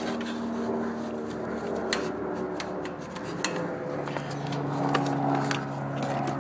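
Scraping and clicking of a block heater cable being worked down among the hoses of an engine bay, over a steady low hum.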